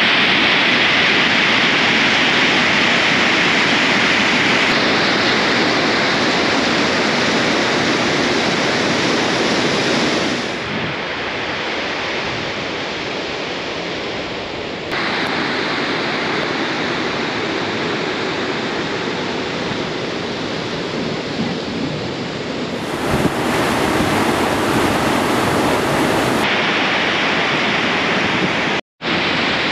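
Glacial meltwater torrent rushing over boulders, a loud steady wash of water. Its level and tone shift abruptly several times, with a brief dropout near the end.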